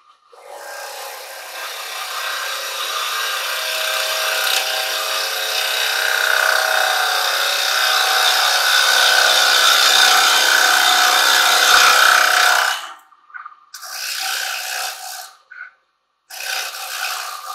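Carbide-tipped chisel cutting into a spinning silver birch bowl on a wood lathe, a continuous scraping hiss of shavings coming off the wood that grows louder over about twelve seconds. The cut then stops, and two short cuts follow.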